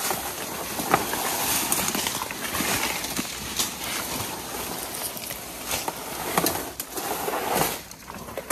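Footsteps and rustling through leaf litter and brush, with irregular sharp snaps and cracks.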